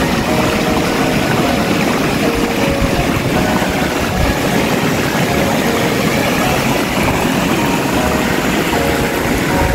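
Fast-flowing mountain stream rushing over rocks, a steady loud roar of water with a rumbling low end.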